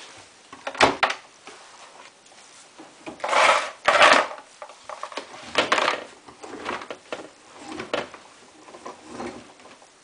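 Samsung WF8804RPA front-loading washing machine door clicking open about a second in, then damp laundry being pulled out of the drum in a series of rustling, brushing bursts.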